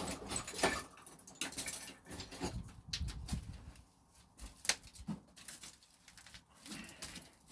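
Irregular workshop handling sounds from fitting a mower blade: scattered clicks, knocks and rustles, with one sharp metallic clink about halfway through that rings briefly.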